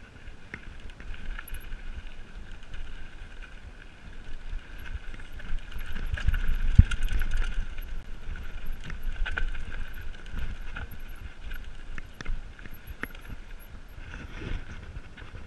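Mountain bike riding down a dirt singletrack: tyres rolling and rattling over rough ground, with many small knocks and clicks, a steady high whir and wind rumble. It is loudest and roughest about six to seven seconds in.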